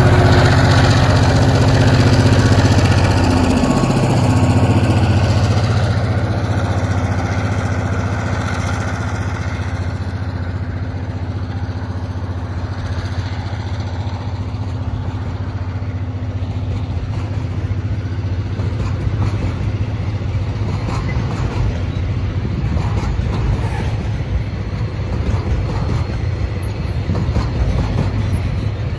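TasRail diesel locomotives passing close by, their engine note dropping in pitch about three seconds in as they go past. After that, loaded log wagons roll past with a steady rumble and wheel clatter, the clatter growing near the end.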